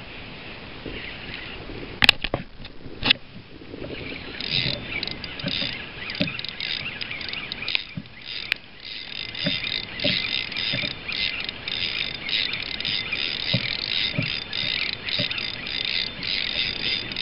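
Spinning reel being cranked, its gears giving a choppy, scratchy whirr in quick bursts as a hooked fish is reeled in, with a couple of sharp knocks about two and three seconds in.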